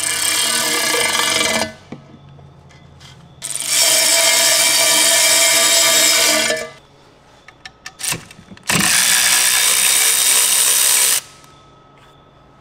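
Cordless electric ratchet running in three spurts of a few seconds each, driving bolts on an intake pipe flange, with a few light clicks between runs.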